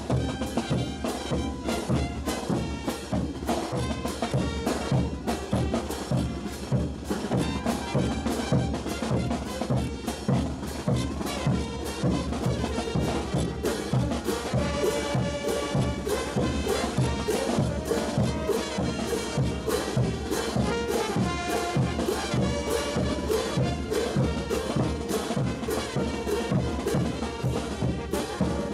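Brass band playing festival dance music, horns over a steady drum beat.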